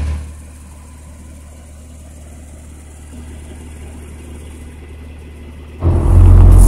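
Porsche Macan engine running with a steady low hum, then much louder with a deep rumble from about six seconds in.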